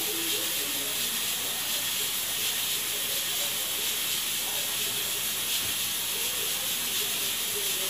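Steady high-pitched hiss of background noise.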